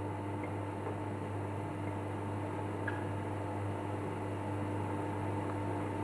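Steady electrical hum with several held tones from a benchtop DSP induction melting furnace, still powered and heating while the molten copper is stirred. A faint tick about three seconds in.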